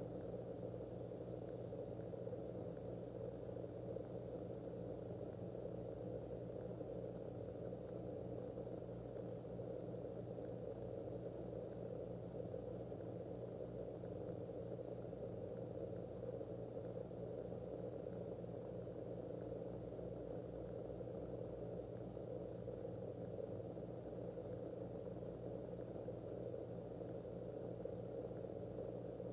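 Steady low hum with a faint even hiss and no distinct events: room tone.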